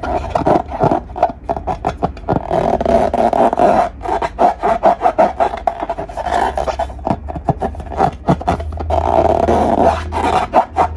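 Glossy slime being squished and stretched by hand, with dense sticky clicks and crackles from popping air pockets.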